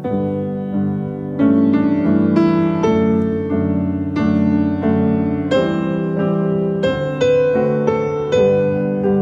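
Piano music: slow chords and a melody, with a new chord struck every second or so and each note fading until the next.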